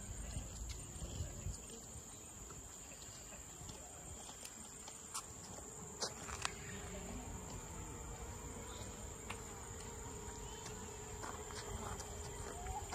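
Insects droning in a steady high-pitched whine, with a few sharp clicks around the middle.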